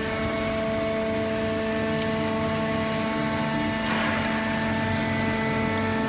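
Hydraulic horizontal baler for waste cardboard (OCC) running, its motor and hydraulic pump giving a steady whining hum. A short hiss comes about four seconds in.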